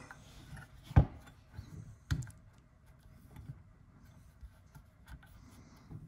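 A dust cap being pushed onto a car power socket mounted in a chrome metal console housing: one sharp click about a second in and a softer one about a second later, then faint rubbing and tapping as the part is handled.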